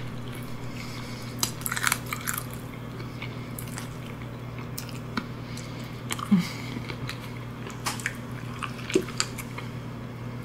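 Close-miked mouth sounds of eating crab meat: scattered wet chewing and smacking clicks, densest about two seconds in and again around six seconds. A steady low hum runs underneath.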